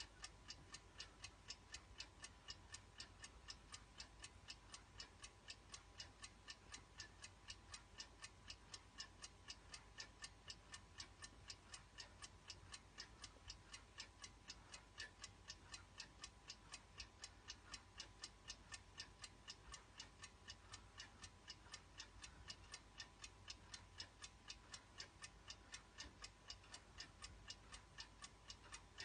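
1960s mechanical twin-bell alarm clock ticking, faint and perfectly even at about four ticks a second.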